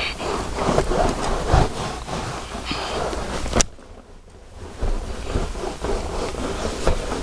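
Close rubbing and rustling of a cloth against car carpet as it is scrubbed. One sharp click comes about three and a half seconds in, then a lull of about a second before the rubbing starts again.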